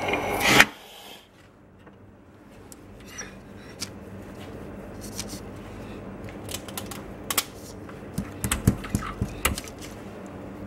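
A short loud hiss-like burst about half a second in, then scattered light clicks and taps of small objects being handled on a workbench, more frequent in the second half.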